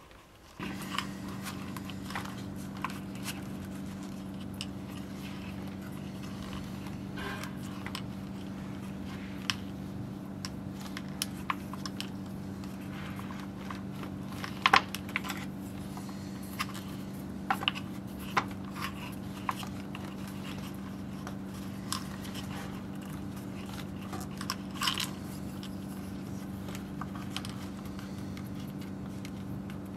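Leather being hand-stitched and handled: scattered small clicks and crackles from the leather, thread and metal rings, over a steady low hum that starts about a second in.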